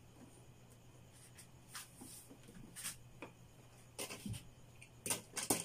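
Hands handling electrical wires and a plastic wall switch: scattered light scratches, rustles and small clicks, with a cluster of them about four seconds in and again near the end.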